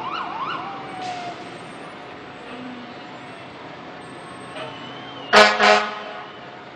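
Fire department rescue truck's siren giving a quick up-and-down whoop that winds down and dies away, then two short, loud horn blasts about five seconds in.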